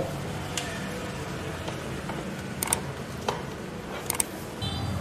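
Handling sounds of a power cable being plugged into the back of a computer monitor: a few short, light clicks and knocks spread over several seconds, over a low steady hum.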